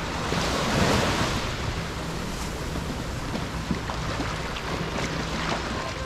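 Small waves washing onto a sandy beach, swelling about a second in, with wind rumbling on the microphone.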